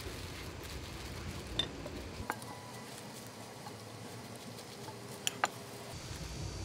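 Light handling noises at a food-prep counter: a few sharp little clicks and taps over a steady background hiss, one about a second and a half in, another shortly after, and a quick pair near the end, as gloved hands work the rolls.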